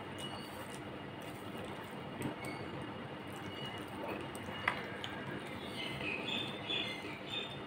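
Eating sounds: fingers mixing rice on a steel plate and chewing, with a couple of light clinks against the plate, over a steady background hiss.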